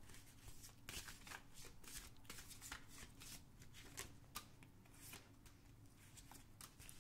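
A deck of large oracle cards being shuffled by hand: a faint, irregular run of soft card flicks and clicks as the cards slide over one another.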